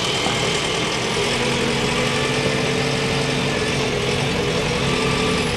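JCB backhoe loader's diesel engine idling steadily, heard from the operator's cab.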